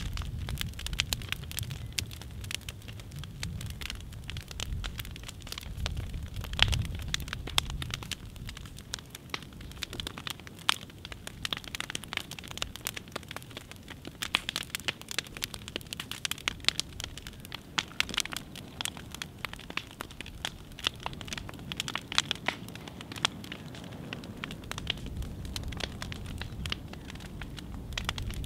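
An upright piano burning in the open: a fire's steady crackling with frequent sharp pops of wood, over a low rumble that is stronger near the start and at the end.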